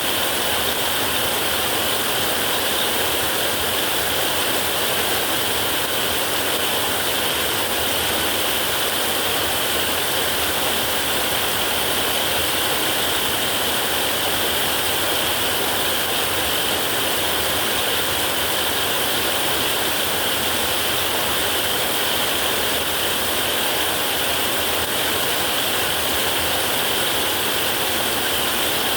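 Heavy rain falling on a metal roof, a steady even hiss of drops with no thunder.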